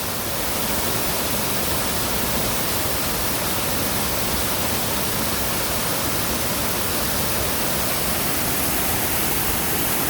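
Waterfall: water pouring steadily, a constant rushing hiss.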